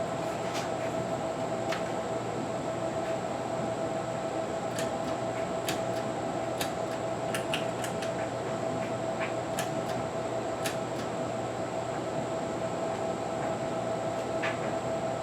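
Steady mechanical hum with a fixed mid-pitched tone, with scattered light clicks and taps throughout.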